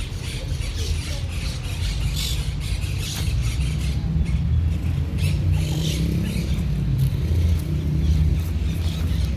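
Outdoor background noise in a park beside a street: a steady low rumble with irregular patches of higher hiss over it.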